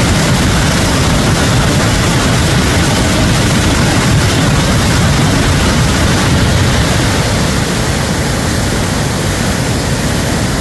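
Loud, steady rushing of a river in high flood, brown water churning in standing waves as it pours through a barrage's gates; the sound eases slightly near the end.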